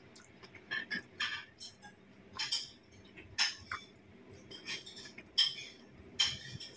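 Close-up eating sounds: a string of short, crisp crunches and mouth smacks at irregular intervals, about one every half second to a second, as cucumber salad and rice eaten by hand are chewed.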